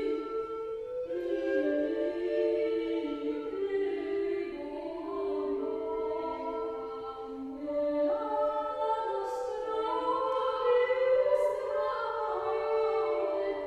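Medieval or Renaissance vocal music: several female voices singing sustained lines together in parts.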